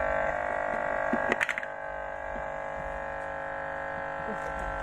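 Steady electrical hum and buzz from the speakers of a homemade miniature amplifier, a stack of steady tones. About a second and a half in, a few sharp crackles come as a cable is plugged into the amplifier, and the hum then carries on a little quieter. The hum comes from the amplifier's troublesome power supply, which the builder blames for it.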